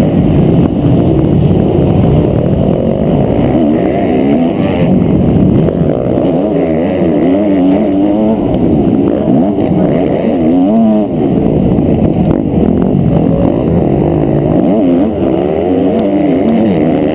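250 cc four-stroke motocross engine racing hard: revving up and dropping back through the gears, its pitch rising and falling again and again.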